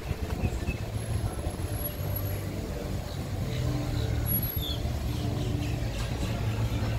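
Street traffic ambience: a steady low rumble of cars on the road.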